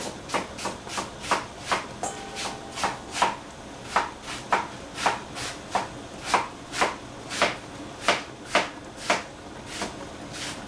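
Knife chopping on a cutting board, steady strokes about two a second.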